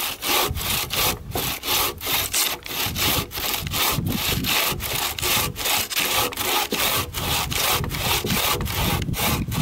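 Homemade bucksaw with a store-bought blade in a wooden stick frame cutting through a thick log, in a steady rhythm of rasping back-and-forth strokes, about three a second.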